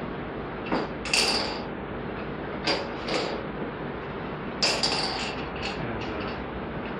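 Small balls clinking against drinking glasses: several sharp, glassy clinks at irregular intervals as balls are dropped into the glasses and a glass is moved. A steady hiss runs underneath.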